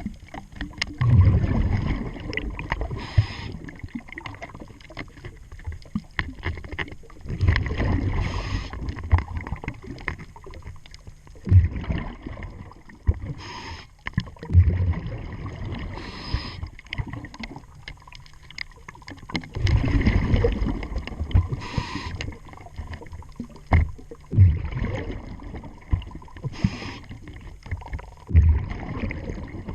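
Scuba diver breathing through a regulator underwater: a low, bubbling rush of exhaled bubbles every five or six seconds, with a short hiss of inhalation through the regulator between them. A few sharp knocks, about twelve seconds in and again near twenty-four seconds, stand out from the breathing.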